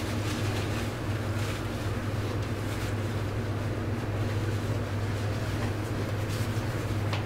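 Steady low room hum with a constant hiss, the same background that runs under the speech around it, with a few faint brief rustles.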